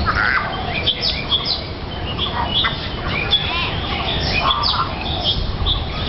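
Golden-crested mynas chattering in warbled banter: a dense run of short whistles, chirps and trills, with a steady low rumble of background noise beneath.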